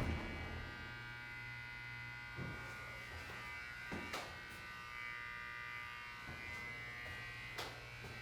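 Steady electrical buzzing hum inside an Otis hydraulic elevator car, broken by a few sharp clicks: one about two and a half seconds in, a quick pair near four seconds, another near the end. The clicks come from the car itself and are taken for a relay clicking.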